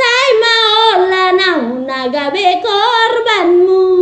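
A woman singing solo in a strong voice, holding long notes with a wide vibrato, then settling on one steady held note near the end.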